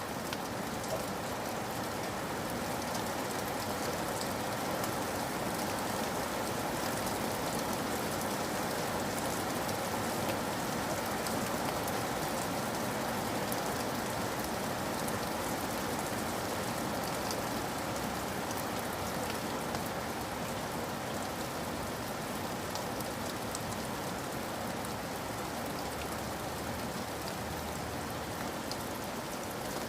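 Steady rain falling: a dense, even hiss of rain with many small drop ticks scattered through it.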